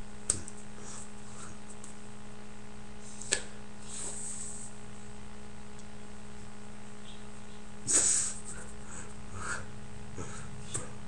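A steady low hum, with a few sharp taps from hands signing and a short breathy puff about eight seconds in, the loudest moment.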